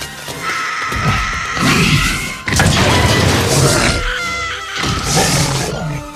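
Tense orchestral film score with loud crashing impacts over it, the loudest starting sharply about two and a half seconds in.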